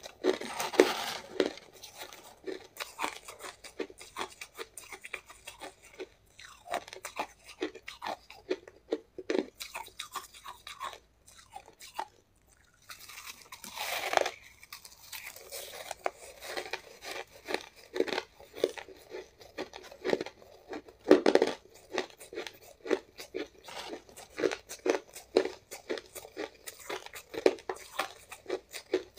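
Close-miked crunching of shaved ice being bitten and chewed, in a run of short, sharp crunches with a brief pause about eleven seconds in. A metal spoon scrapes and scoops through the bowl of shaved ice now and then.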